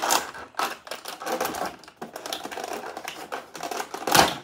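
Clear plastic toy packaging crackling and crinkling in a fast, irregular run of clicks as it is twisted and pulled open by hand, with one louder crack about four seconds in.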